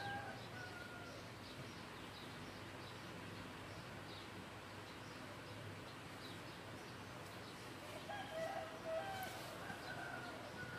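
Faint outdoor background with small birds chirping now and then. A rooster crows from about eight seconds in, in a call of about two seconds.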